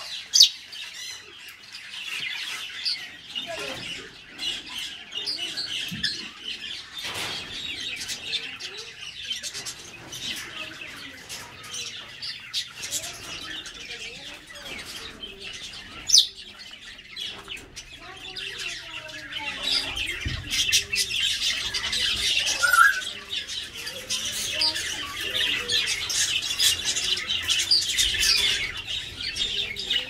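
A flock of aviary parrots, African grey parrots and smaller green parakeets, chattering and squawking. Sharp loud squawks ring out about half a second in and again about sixteen seconds in, and the high chatter grows denser and louder over the last third.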